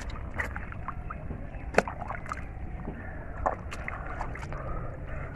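Shallow river water sloshing and splashing, with scattered short splashes and knocks, the sharpest a little under two seconds in, over a steady low rumble.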